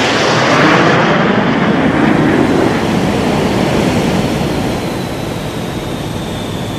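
Jet aircraft flying past: a loud rushing noise that is strongest about a second in and then slowly fades, with a faint high whine that sinks a little in pitch.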